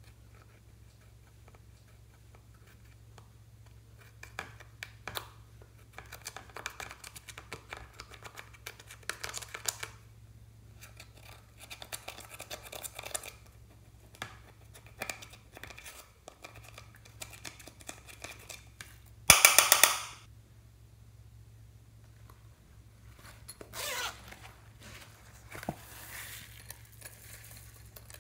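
Thin metal tool scraping and picking at pressed eyeshadow pans, in repeated runs of fine scratchy clicks, with one much louder, brief rasping noise about two-thirds of the way through.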